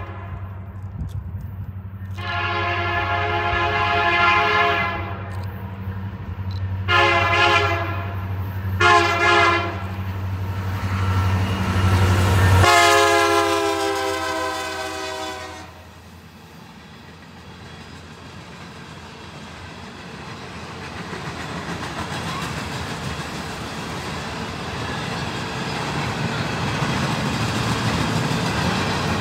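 A CSX freight locomotive's horn sounds a long blast, two short blasts, then a long blast that drops in pitch as the locomotive passes, with the low diesel engine drone falling away at the same moment. After that, empty phosphate hopper cars roll past with steady wheel-on-rail clatter that grows louder.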